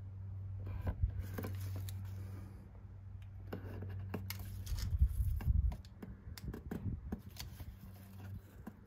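Small clicks, taps and rustles of hands handling a metal speed square while an adhesive anti-slip strip is peeled and pressed along its edge. The loudest knocks come about five seconds in, and a steady low hum sits underneath at first.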